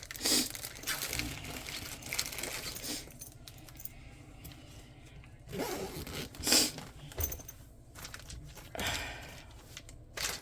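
Plastic and paper packaging crinkling and rustling in irregular bursts as a bag is rummaged through by hand, busiest at the start.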